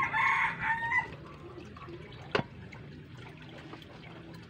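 Water trickling and dripping into a fish tank from a hose, over a steady low hum. A brief loud call-like sound comes in the first second, and a single sharp click about two and a half seconds in.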